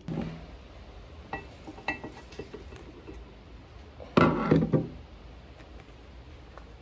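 A flathead screwdriver scrapes and clinks against the metal rim of a BMW E36 differential cover, chipping off the old paper gasket. It makes a few sharp metallic clinks that ring briefly, then a louder stretch of scraping and clatter about four seconds in.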